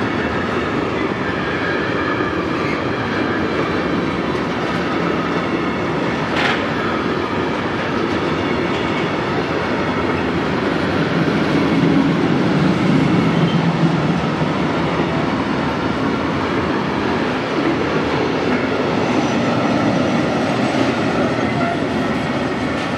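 Freight train of tank wagons rolling past: a steady rumble of wagon wheels on the rails, swelling a little around the middle. A brief sharp sound stands out about six seconds in.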